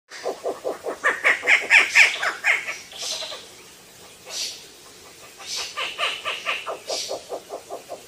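Owls calling: two fast runs of rapid pitched notes, about seven a second, the first rising in pitch as it goes. Short breathy, higher sounds come between the runs.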